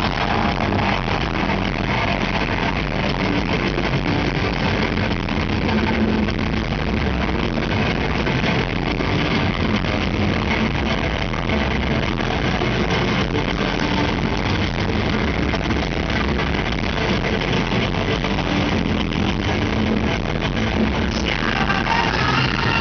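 Live heavy metal band playing through an arena PA, loud and dense, as heard from within the audience. About a second before the end, a rushing hiss with falling whistling tones comes in over it.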